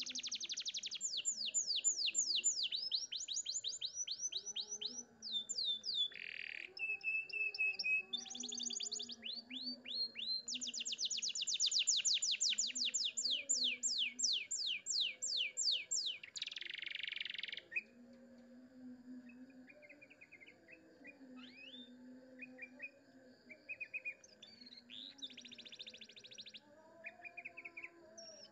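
Domestic canary singing: fast rolling trills of rapidly repeated high notes and quick down-sweeping notes, with two short buzzy notes. About two-thirds of the way through the song gives way to scattered short chirps.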